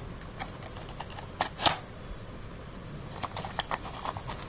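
Hands handling a Bluetooth earbuds box and its packaging: light rustling with scattered clicks and taps, two sharp ones about a second and a half in, the second the loudest, then a quick run of small clicks near the end.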